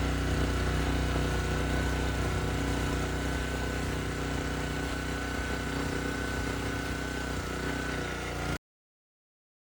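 Pressure washer engine running steadily, with a constant high-pitched whine over the engine note; it cuts off abruptly near the end.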